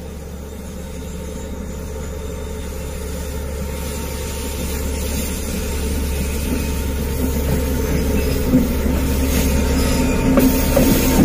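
Freight train led by a D20E diesel-electric locomotive climbing a steep grade, its engine giving a steady low drone that grows louder as it approaches. A few sharp knocks from the wheels and rails come near the end as it draws level.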